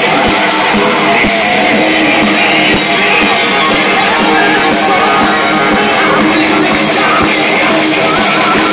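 Live heavy metal band playing loud, with distorted electric guitar through Marshall amplifier stacks. The sound is a dense, unbroken wall with little deep bass.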